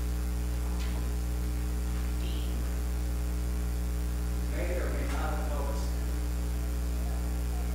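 Steady electrical mains hum running under the recording, with faint indistinct voices briefly about two-thirds of the way through.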